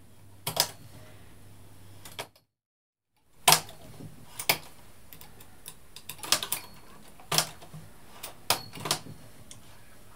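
Irregular sharp clicks of a hand tool working stitches off the metal needles of a Brother 950i knitting machine, casting off behind the gate pegs. A short cut to silence about two and a half seconds in.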